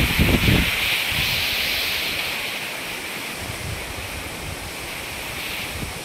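Waterfall rushing as a steady hiss, with wind buffeting the microphone in the first half second. The rush thins after about two and a half seconds.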